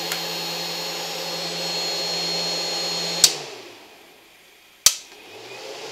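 OSP Tiger Claw 1500 W pure sine inverter running at about full load with a space heater on high, a steady fan hum with high whines. About three seconds in a switch clicks, the inverter cuts out from overload and the sound winds down to quiet; a second click near five seconds and the hum comes back.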